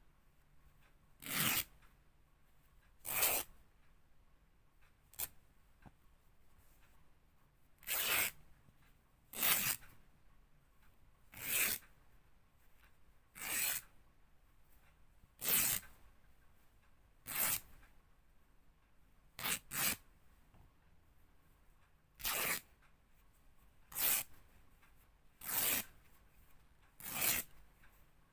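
Fabric being ripped in a series of short tears, one about every one and a half to two seconds, about fifteen in all.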